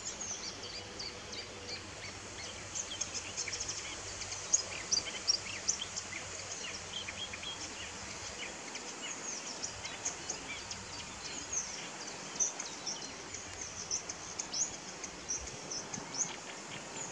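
Several songbirds singing together: many short, high chirps and trills overlapping, over steady background noise.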